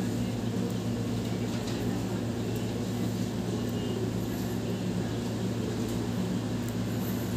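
A steady low hum over a background hiss, with a few faint ticks.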